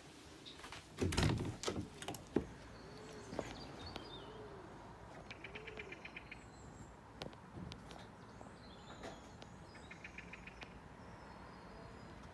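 A cabin door being opened: clicks and knocks of the handle and door about a second in. Then birds call outside: three low arched calls, scattered high chirps and two short rapid trills.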